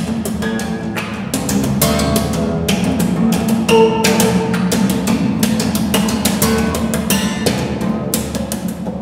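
Fretless acoustic bass guitar played percussively: many sharp hits and slaps, several a second, over ringing low notes and a few higher held notes. It is bathed in heavy reverb from the underground hole.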